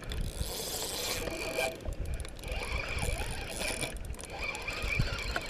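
Fishing reel working against a hooked carp: a steady mechanical ratcheting buzz from the reel as the fish pulls line.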